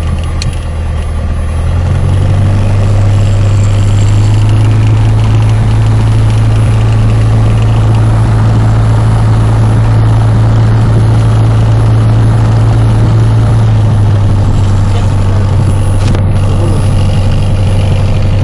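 Light aircraft's piston engine and propeller heard from inside the cabin while taxiing on grass: a steady low drone that picks up about two seconds in and eases back a little about three-quarters of the way through.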